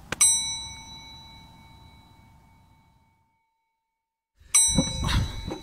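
A bell-like magic chime sound effect strikes and rings out, fading away over about three seconds, as the spell takes effect. A second, identical chime strikes about four and a half seconds in over a low background rumble.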